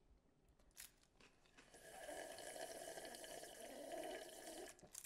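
A person drinking from a plastic cup: a steady liquid sound that starts a little under two seconds in and lasts about three seconds.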